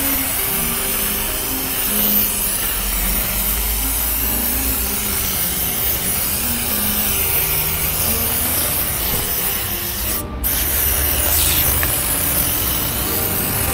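Steady hiss of a cleaner being sprayed, with light background music under it. The hiss breaks off for a moment about ten seconds in, then carries on.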